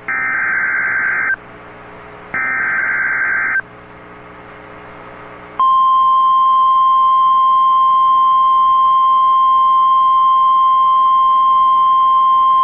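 NOAA Weather Radio emergency alert: the last two of the three buzzing digital SAME header bursts, each a little over a second long and a second apart. About five and a half seconds in, the steady single-pitch 1050 Hz warning alarm tone starts and holds, announcing a severe thunderstorm warning.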